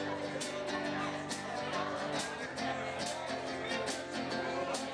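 Live band playing an instrumental passage: strummed acoustic guitar with fiddle over a drum kit keeping a steady beat of about two hits a second.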